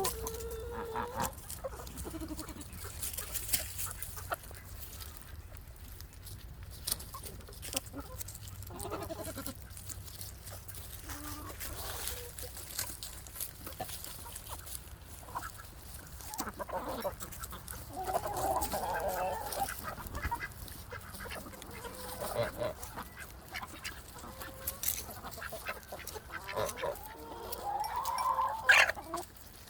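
Domestic waterfowl giving honking calls now and then, the longest about two-thirds of the way through and another loud one near the end, with scattered light clicks between.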